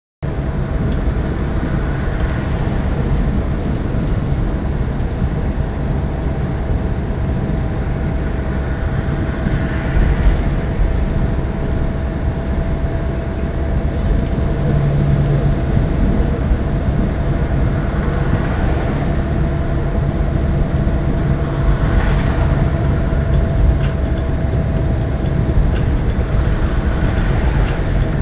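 Steady low rumble of a semi truck at highway speed, engine drone and road noise heard inside the cab, with a faint steady whine running through it.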